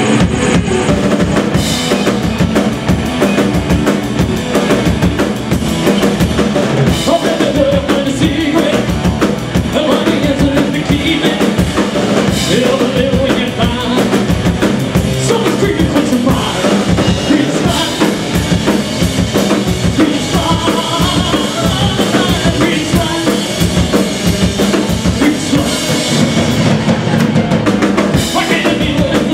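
Live rock band playing a loud song on electric guitar, bass guitar and drum kit. The drums come in at the start with a steady, driving beat of bass drum and snare.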